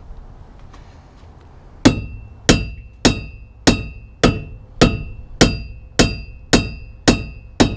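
Rubber mallet striking a stuck car part about eleven times in a steady rhythm, a little under two blows a second, each hit with a short metallic ring. The blows are to knock loose a part held down by sealant.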